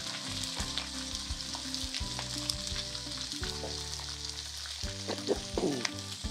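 Sliced onions sizzling in hot mustard oil in a wok, stirred with a silicone spatula that clicks and scrapes against the pan now and then.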